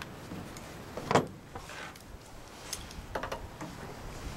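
Small metal parts of a Honda-clone engine's carburetor being handled and fitted back together at the float bowl: one knock about a second in, then a few light clicks.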